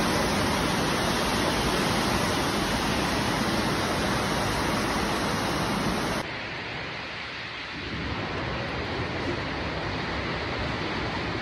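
Steady rain, an even hiss. About six seconds in it drops suddenly to a quieter, duller hiss.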